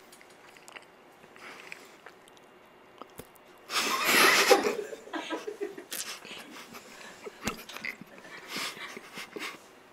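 Quiet chewing of a chocolate right at an ASMR microphone, broken about four seconds in by a loud breathy burst of stifled laughter, with smaller snickers and breaths after it.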